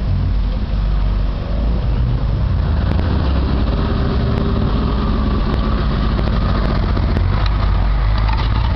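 Engine of an off-road trial 4x4 running steadily as the vehicle drives slowly along a grassy course.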